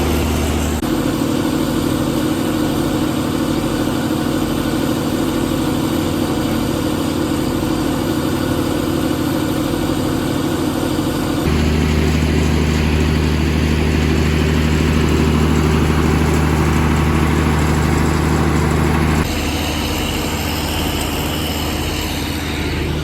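Vehicle engine running steadily, heard in several stretches that change abruptly in tone and loudness about a second in, about halfway through and near the end.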